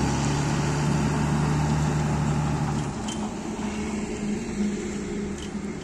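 Large goods truck's diesel engine running as the truck pulls away. Its steady low note is loud at first, then drops and quietens about halfway through.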